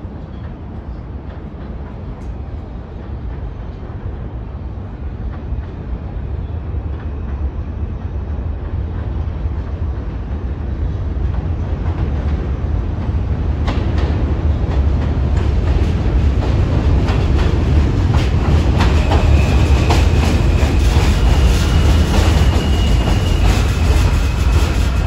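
New York City subway train rumbling in, growing steadily louder as it nears. From about halfway through its wheels clatter rapidly over the rail joints, and a thin high whine sounds over the clatter near the end.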